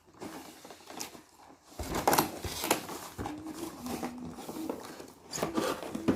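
Toy packaging being worked open by hand: rustling and scraping with a few sharp clicks and snaps, the packaging proving hard to open.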